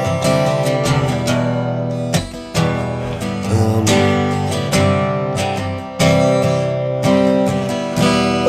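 Acoustic guitar strummed, a run of chords that change about once a second.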